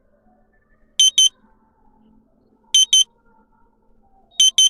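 Three electronic double beeps from an electric fireplace's controls, spaced about a second and a half apart. Each beep pair acknowledges a button press as the lighting brightness is stepped down.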